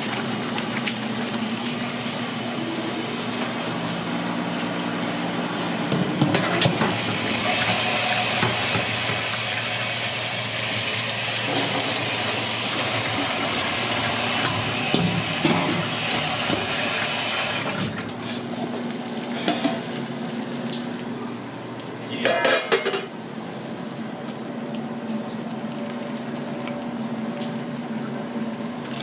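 Raw octopus being squished and rubbed in a steel bowl, then a kitchen tap running over it into a steel sink for about ten seconds, the loudest part; a steady low hum underneath and a few sharp metal clatters after the water stops.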